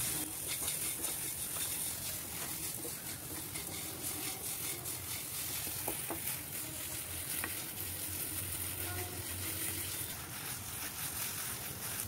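Wooden spatula stirring and scraping mashed potato and sugar around a non-stick pan as it roasts in ghee, with a light sizzle and soft scattered taps.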